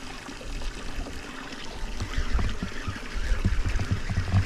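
Small waves lapping against a boat's hull, with irregular low rumbles and knocks that grow louder from about two seconds in.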